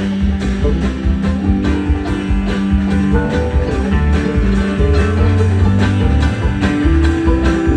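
Live country band playing an instrumental break, with a five-string banjo picking the lead over the band's steady rhythm.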